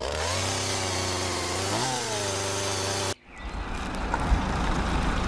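Engine sound effect idling steadily, revving briefly about two seconds in, then cutting off abruptly; after a short gap a rougher rumbling engine noise takes over.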